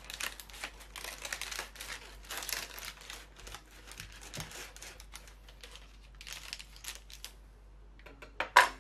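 Knife sawing back and forth through a dense loaf of acorn bread in repeated strokes, with the parchment paper under it crinkling. Near the end, a couple of sharp knocks.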